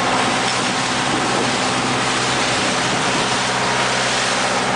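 A fishing boat's engine running steadily under a constant wash of water noise.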